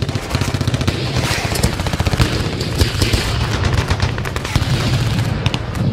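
Logo-intro sound effect: a dense, rapid rattle of cracks like machine-gun fire over a steady low rumble.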